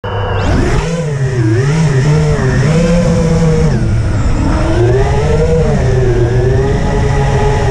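FPV quadcopter's brushless motors and propellers whining, the pitch rising and falling again and again with the throttle. The sound cuts in abruptly at the start.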